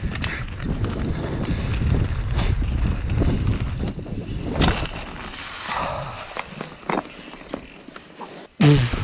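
Mountain bike riding fast down a dirt forest trail: wind rushing over the microphone and tyres rolling over dirt, with a sharp knock about four and a half seconds in. Near the end the rider lets out a short loud cry.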